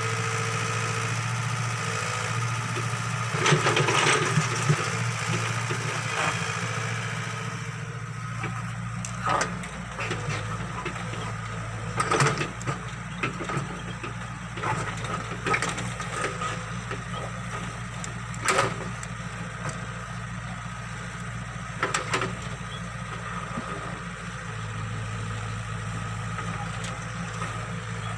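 Excavator's diesel engine running steadily as it digs, its engine note shifting with load. Scattered sharp knocks and clanks come from the working machine.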